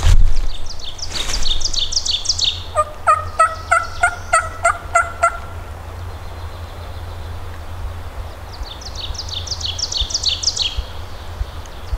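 Wild turkey calling a run of about ten evenly spaced yelps, each a few notes higher than the last. Before and after them a small bird gives quick runs of high chirps. A thump at the start is the loudest sound, with a low wind rumble underneath throughout.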